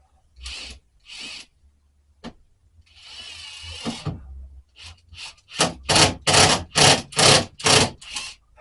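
Wood scraping against wood: a few separate scrapes and a click, then a quick run of about eight strong, even strokes, two to three a second, in the last few seconds.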